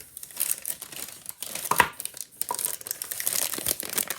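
A plastic self-seal packaging bag crinkling and crackling as it is handled and pulled open, with a sharper snap a little under two seconds in.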